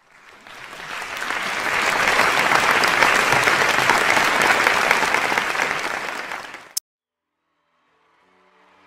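Audience applause that swells up over about two seconds, holds, then fades and cuts off abruptly with a click about seven seconds in. Music fades in faintly near the end.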